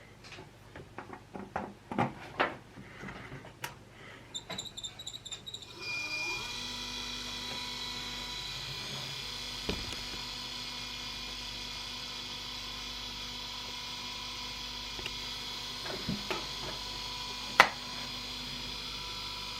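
Clicks and knocks of hardware being handled, with a few short high beeps. Then, about six seconds in, a steady electrical hum with a whine sets in and runs on, broken by a few clicks, one sharp click near the end the loudest.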